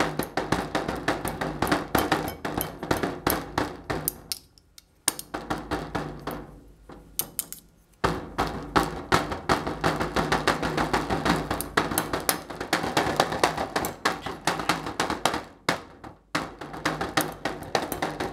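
Two plastic spoons drummed rapidly on a glass bowl covered with cling wrap: quick runs of light taps, several a second, with short pauses about four, seven and sixteen seconds in.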